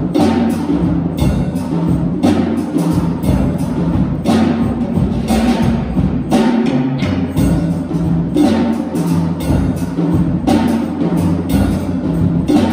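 Live piano accompaniment: rhythmic chords with a heavy bass, about one strong accent a second.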